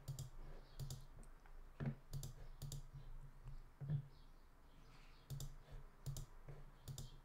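Computer mouse clicking quietly: a handful of sharp clicks at irregular intervals, many in quick press-and-release pairs.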